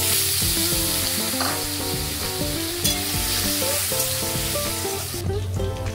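Raw potato wedges dropped into hot oil in a kadai, sizzling hard as they start to fry, with a spatula stirring them. The sizzle drops away a little past five seconds.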